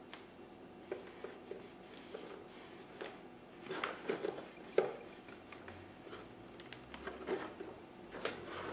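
Handling noise from fingertips pressing and smoothing black adhesive film onto a foam model airplane wing: scattered light clicks and short rustles, with a sharper click a little before halfway.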